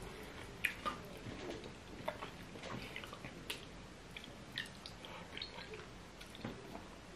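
Fufu with pepper soup being eaten by hand: faint wet chewing and mouth smacks, with the soft squish of fingers working the fufu in the soup. Scattered short clicks throughout, a few louder than the rest.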